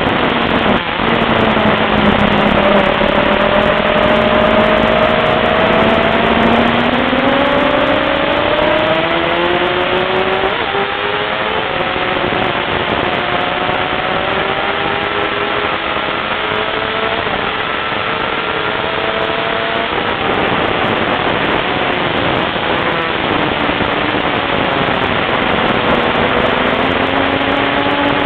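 Sport motorcycle engine running hard at speed under heavy wind rush on the microphone. The engine note climbs slowly, drops back about ten seconds in and again about twenty seconds in, then climbs again.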